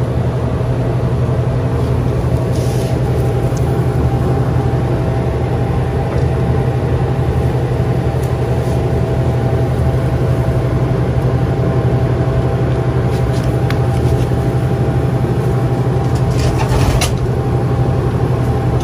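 Steady low machine hum at a constant pitch, with a few brief light clicks and rustles, the most distinct near the end.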